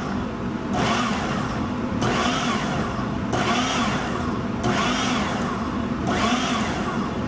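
Countertop food processor pulsed in quick succession, about five short bursts roughly a second and a quarter apart. The motor spins up and winds down each time as the blade chops onion and bell pepper fine.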